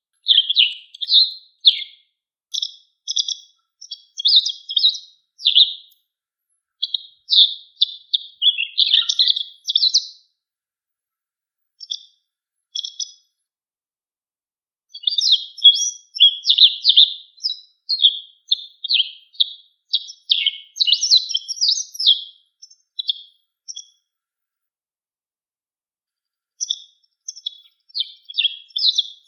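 White wagtail calling: quick runs of short, sharp, high chirps in bursts, broken by two silent pauses of several seconds, one a third of the way in and one near the end.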